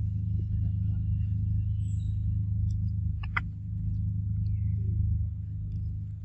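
A steady low rumble, with one sharp click a little over three seconds in and a few faint high chirps.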